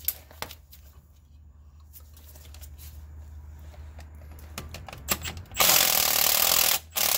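Milwaukee M12 cordless ratchet backing out a 12 mm bolt, after a few sharp clicks of the socket going onto the bolt. It runs loudly for about a second near the end, then gives one more short burst.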